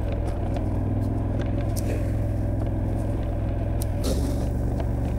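KTM 1290 Super Adventure's V-twin engine running steadily at low revs while riding an off-road forest track; the engine note shifts lower about four seconds in.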